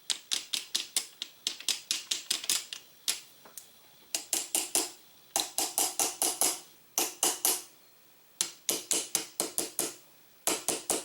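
Quick light taps on the wooden forend stock of a Circuit Judge, struck in runs of several at a time with short pauses, to loosen a forend that is stuck on the gun.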